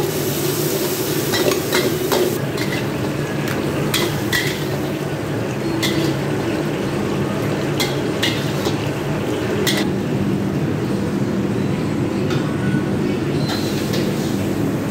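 Metal spatula scraping and clanking against a wok during a stir-fry, with sharp clanks every second or so, thinning out after about ten seconds. Under it runs a steady low rumble.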